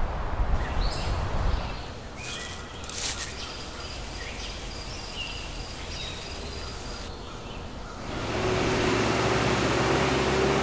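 Outdoor ambience: a low windy rumble, then faint high chirping calls over a quiet background, then from about eight seconds a louder steady rushing noise with a low hum.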